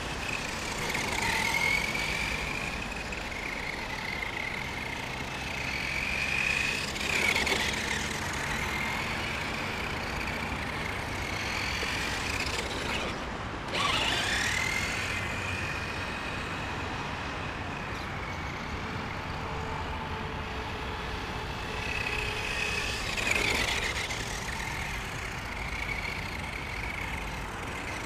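Brushed electric motor of a Helion Dominus 10SC 1/10-scale RC short-course truck whining as it drives, its pitch rising and falling with the throttle. The sound swells louder a few times, about a third of the way in, midway and near the end.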